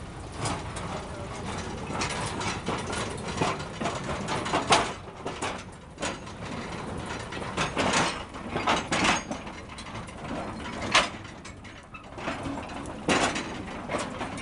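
Train of loaded steel tipper wagons on a narrow-gauge field railway rolling past, clanking and knocking irregularly over a steady low rumble.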